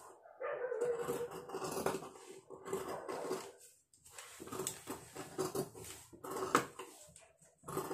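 Large tailor's scissors cutting through blouse fabric along a paper pattern, with repeated snips of the blades and the scissors sliding and knocking on the wooden cutting table.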